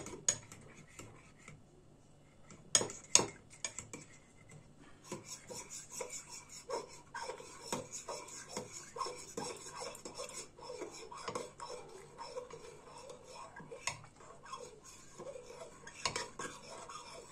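Utensil stirring in a bowl, clinking and scraping against its sides, as hot soup is ladled into an egg-yolk, flour and yogurt sauce to temper it so that it does not curdle. Two sharp knocks about three seconds in, then quick, steady clinking from about five seconds on.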